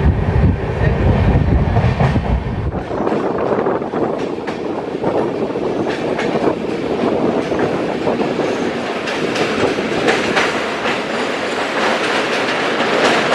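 Passenger train coach running on the track, with rapid clatter from the wheels over the rail joints. A deep rumble fills about the first three seconds, then drops away, leaving the clatter.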